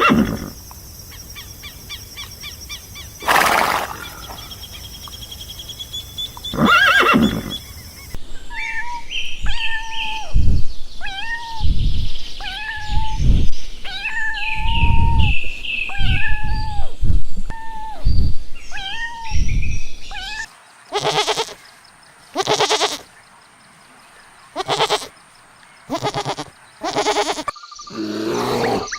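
Farm animal calls from several short clips cut together. There are a few scattered calls at first, then a run of about a dozen pitched calls roughly a second apart, then separate loud calls with quiet gaps between them.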